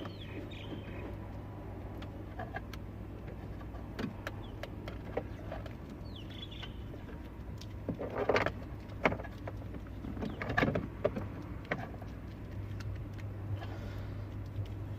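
Wiring loom being handled and wrapped in electrical tape: scattered clicks and rustles, with a few short rasping pulls of tape from the roll about eight, nine and eleven seconds in, over a steady low hum.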